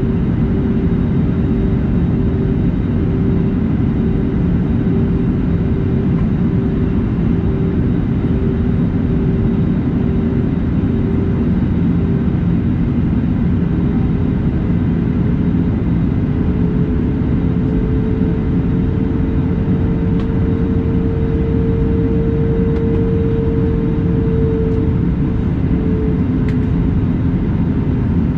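Steady cabin drone of an Airbus A320neo airliner in flight: a deep rumble of engine and airflow noise with a steady hum that rises a little in pitch for several seconds in the second half as engine power changes.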